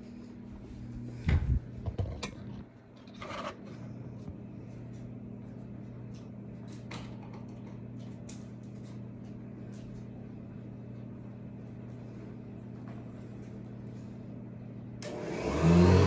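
A 1976 Hoover U4317 upright vacuum cleaner switches on about a second before the end, its motor spinning up with a rising pitch and then running loudly. Before that there is only a steady low hum, with a few knocks in the first few seconds.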